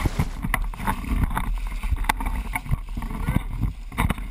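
A gaffed yellowtail thrashing in the water against a boat's hull: irregular splashes and knocks over a steady low rumble.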